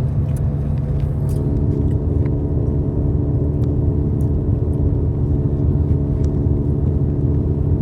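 Steady low rumble of a car's engine heard from inside the cabin, with a humming tone that grows stronger about a second in and a few faint clicks.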